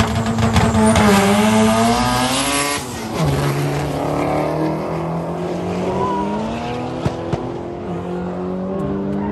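Car engine held at high revs, its pitch dropping sharply about three seconds in and then slowly climbing again, with two short sharp pops about seven seconds in.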